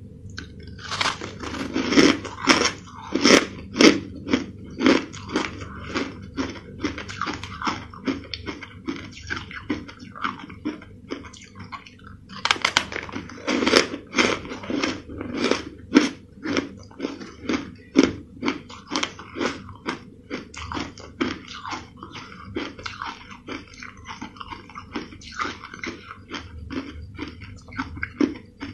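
Crushed ice being chewed with the mouth close to the microphone: a steady run of crisp crunches, about two a second. The crunches are loudest when a fresh mouthful begins, about a second in and again about twelve seconds in.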